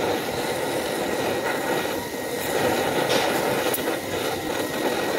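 Torch flame burning steadily on copper refrigerant tubing during brazing, a continuous rushing hiss.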